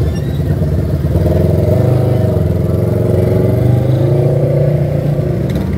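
ATV engine running as the four-wheeler rides past close by, its pitch rising about a second in as it speeds up, then holding steady.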